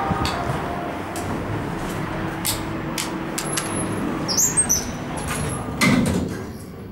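Elevator car's glass sliding doors closing, ending in a thump about six seconds in, after which the surrounding station noise drops away. Before that, sharp clicks over steady background noise as buttons on the car panel are pressed.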